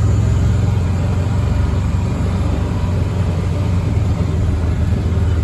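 Steady low rumble of a vehicle's engine running while it is being driven, heard from on board.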